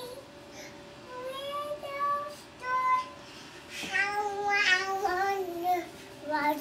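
A young girl singing without clear words, in high held notes that slide up and down, in several phrases with short breaks.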